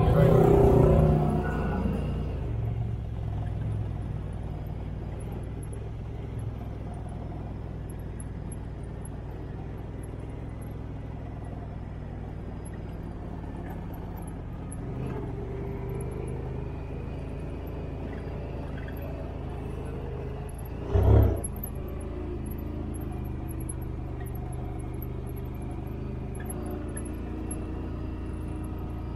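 Engine of a small off-road utility vehicle (ATV or side-by-side) running steadily at low speed. It is louder for the first couple of seconds, with one brief loud thump about three quarters of the way through.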